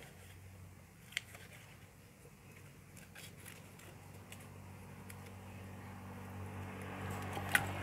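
Quiet handling noises as a hand presses and smooths a glued patch onto a motorcycle fuel tank, with two sharp clicks, about a second in and near the end. A low hum grows louder toward the end.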